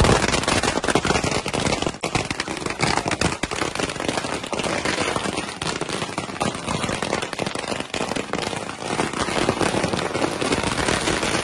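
A string of firecrackers going off in a rapid, unbroken run of bangs and crackles.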